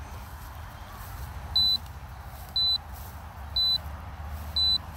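Drone control app's low-battery warning: a short high electronic beep about once a second, four times, starting about a second and a half in, over a steady low rumble.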